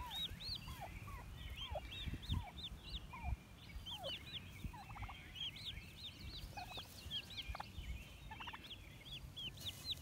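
Turkey poults peeping over and over in short high chirps, with the hen turkey's lower, softer calls now and then among them.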